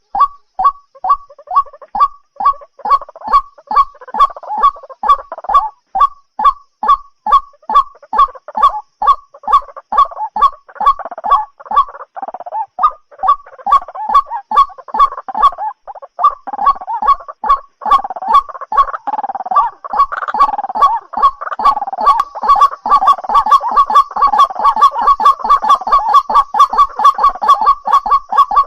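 White-breasted waterhen calling: a loud, long series of rapidly repeated notes, about three a second at first, becoming faster and overlapping in the second half.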